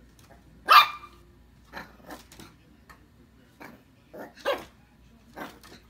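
Puppy barking at its own reflection in a mirror: one loud bark under a second in, then a scattered run of smaller, quieter yaps.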